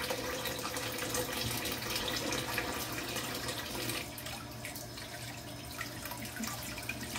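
Kitchen tap running into a sink, the water splashing in a steady rush that drops a little in level about four seconds in.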